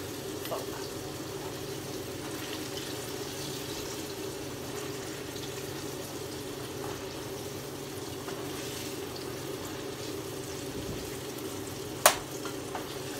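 Sweet potato fries frying in hot oil, a steady sizzle with small crackles, and a single sharp clack near the end.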